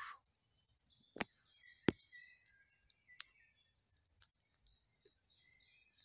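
Pork shashlik sizzling over a wood campfire, a faint steady high hiss, broken by a few sharp pops and cracks from the burning wood, the loudest about two seconds in. Birds chirp faintly.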